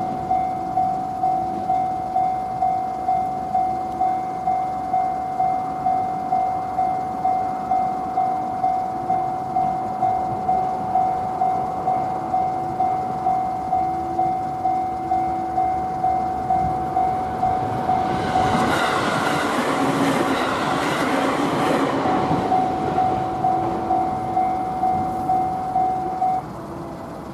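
Japanese railway level-crossing alarm ringing its "kan-kan" at about one and a half strikes a second. A train passes through the crossing, its noise rising over the bell for about four seconds past the middle. The alarm stops abruptly shortly before the end.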